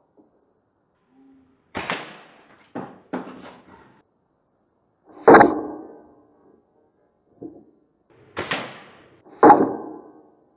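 A .177 BSA Cadet Major spring air rifle being shot and handled, heard as a string of sharp cracks and clunks. The loudest comes about five seconds in, with another loud pair near the end.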